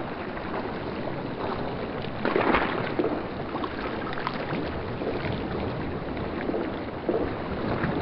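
Pork intestines deep-frying in hot oil for chicharon bituka: a steady sizzle with crackling, stirred with a metal strainer. The sizzle swells briefly twice, once about two and a half seconds in and again near the end.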